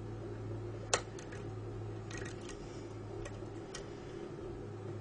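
Small metallic clicks of a half-diamond lock pick working the telescopic pins of a Mul-T-Lock cylinder under tension: one sharper click about a second in, then a few fainter, irregular ticks as pins are lifted and set.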